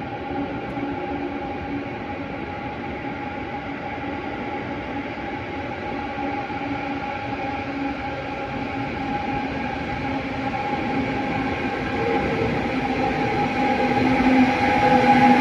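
České dráhy Siemens Vectron electric locomotive approaching through a tunnel into an underground station, hauling coaches. Its running sound, with a steady whine of several tones, grows gradually louder as it nears and pulls in.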